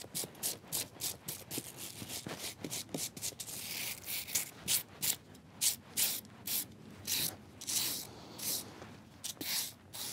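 A stiff hand brush scrubbing the bark of a persimmon trunk in repeated short strokes, about two a second, brushing off loose old bark flakes.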